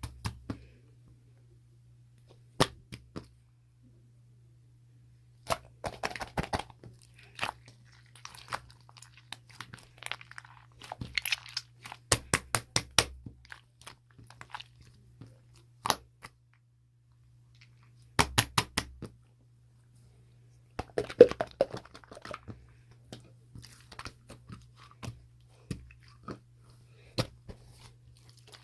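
Irregular crunching and chewing, sharp crisp crunches coming in clusters with short pauses between.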